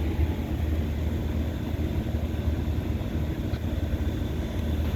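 Lennox HS-19 air-conditioner condensing unit running with a steady low hum.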